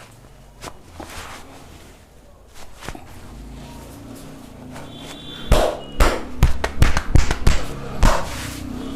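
Hands striking a person's body in a burst of rapid percussive massage strokes: about eight to ten sharp slaps in two and a half seconds, starting about five and a half seconds in, after softer handling sounds.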